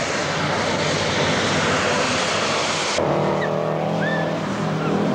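Tatra rally truck running hard past at close range, a dense wash of engine and tyre noise. About three seconds in the sound cuts abruptly to a steadier engine drone with short high-pitched calls over it.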